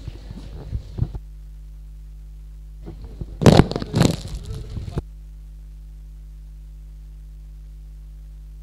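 A microphone on a public-address system being handled and passed on, with rustling and bumps at the start and again about three to five seconds in. Between and after the bumps the PA gives a steady low electrical mains hum.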